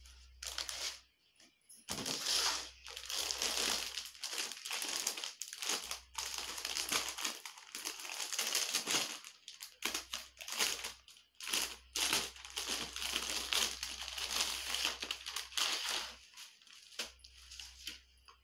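Clear plastic saree wrappers crinkling and rustling as they are handled and taken out of a cardboard box, in uneven bursts with short pauses.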